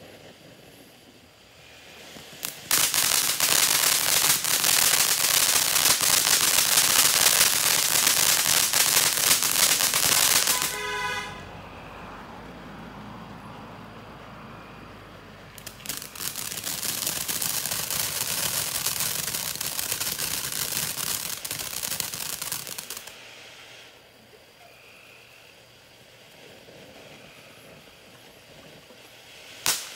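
Ground fountain fireworks spraying sparks: two long stretches of loud, dense crackling, each several seconds long, with quieter hissing between them. A new burst of crackling starts right at the end.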